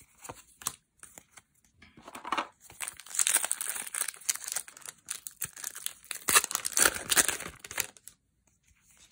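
A foil Magic: The Gathering booster pack wrapper being torn open and crinkled, a dense crackling from about two seconds in to near the end. Before it, a few light clicks of playing cards being handled.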